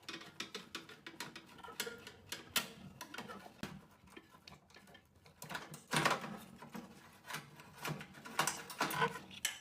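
Irregular clicking and rattling of hand tools and small metal parts while a repairman works on the innards of an opened microwave oven to change its shorted high-voltage capacitor, with louder clusters of clatter about six seconds in and near the end.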